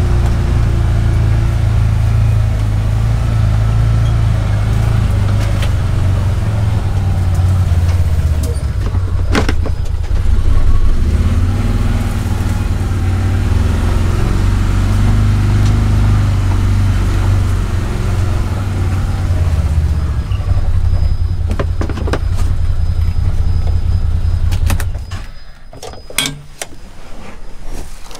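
Can-Am Defender Max HD10 side-by-side's V-twin engine running steadily as it drives, heard from inside the cab. The engine shuts off about 25 seconds in, and a few sharp clicks and knocks follow.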